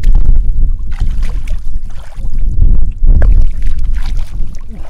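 Wind buffeting the microphone in a loud, uneven low rumble, over the sloshing and splashing of shallow muddy water as a man wades and gropes through it with his hands.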